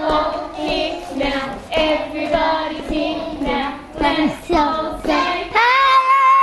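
Young children singing a song together, line by line, then breaking into one long, loud, held high note about five and a half seconds in.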